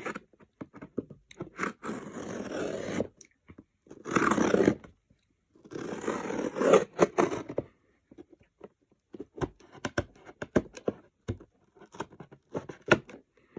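Shoebox cardboard being cut through to make a hole: three longer scraping, crunching cuts in the first eight seconds, then a run of short sharp clicks as the cutting goes on in small strokes.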